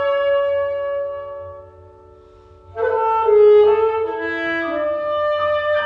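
Alto saxophone with piano accompaniment playing a slow concerto movement. A held chord dies away into a brief pause, and both instruments come back in together about three seconds in.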